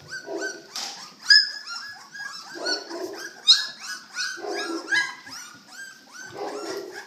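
A litter of Presa Canario puppies about two weeks old squeaking and whimpering: many short, high cries overlapping, with lower, fuller cries about every two seconds.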